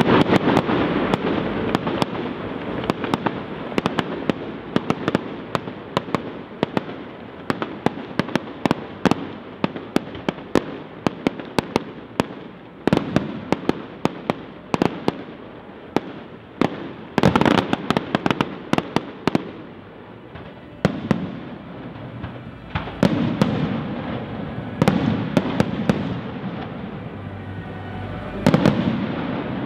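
Fireworks display: a fast, dense run of sharp cracks and pops from bursting shells, with louder clusters of bangs several times.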